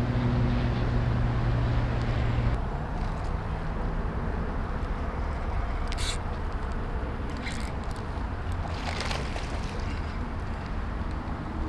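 Road traffic passing close by: a vehicle's low engine hum over steady tyre and road noise, the hum dropping away about two and a half seconds in. A few light clicks near the middle come from the spinning reel and lure being handled.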